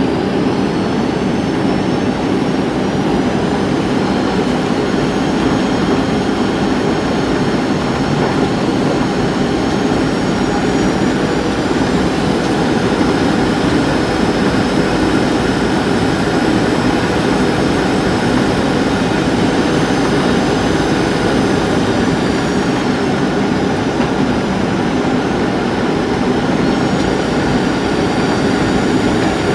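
Cabin noise inside a Boeing 737-700 on approach: a steady rush of airflow and CFM56 jet engine noise, with a high engine whine that shifts in pitch a few times.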